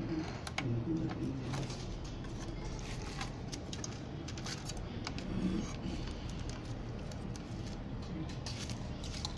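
Scattered light clicks and rustles of wires and cables being handled and pressed into place inside an opened car stereo head unit resting on bubble wrap.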